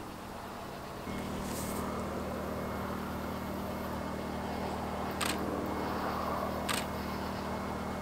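Portable generator running steadily, getting louder about a second in. Two short sharp clicks come about a second and a half apart near the end.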